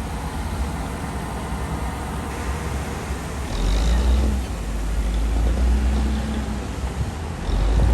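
Komatsu D60P bulldozer's diesel engine working under load in mud and soil, running steadily and swelling louder with a higher engine note from about three and a half seconds in, and again near the end.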